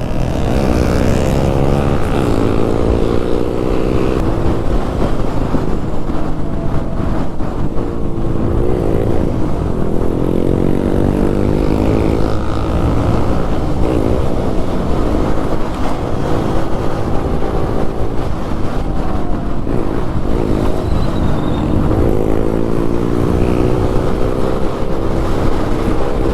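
Single-cylinder motorcycle engine and exhaust under way, revving up through the gears: its pitch climbs several times and drops back at each shift.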